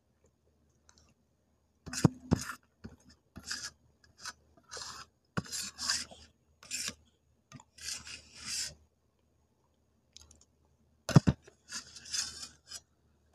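Steel spoon scraping thick clay paste off the inside of a stainless steel bowl, in short irregular rasping strokes. A sharp knock of the spoon comes about two seconds in and another near the end.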